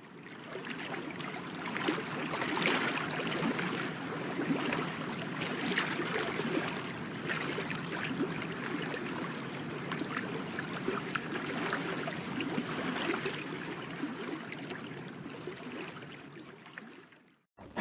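Water running and splashing, a steady trickling with many small splashes, fading in at the start and fading out just before the end.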